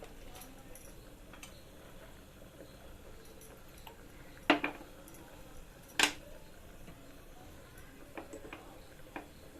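Two sharp clinks of a kitchen utensil against a cooking pot, about a second and a half apart, followed by a few lighter taps near the end.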